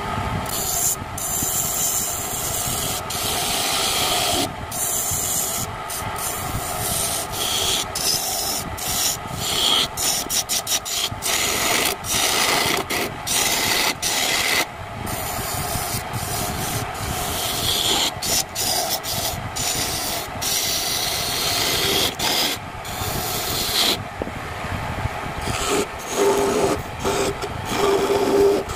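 A hand chisel cutting into wood spinning on a homemade wood lathe: a continuous scraping rasp, broken by many brief gaps as the tool lifts off the wood.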